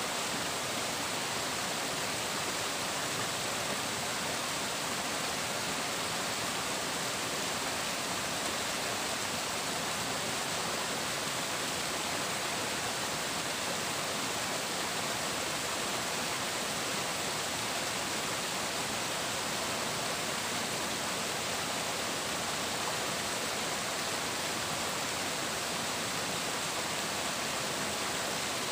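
Flowing water rushing steadily, an even hiss with no pauses or separate splashes.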